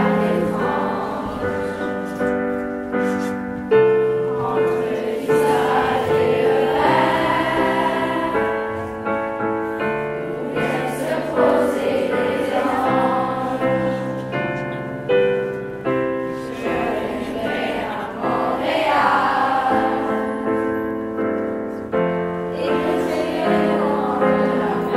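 Children's choir singing a song together with piano accompaniment.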